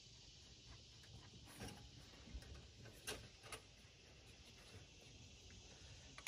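Near silence, with a few faint clicks and taps of hands and a tool handled among the exposed valve gear and injectors of a stopped diesel engine, the sharpest about three seconds in.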